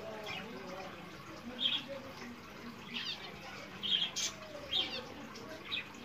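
Domestic canary giving five short, high chirps, spaced about a second apart, with one sharp tap about four seconds in.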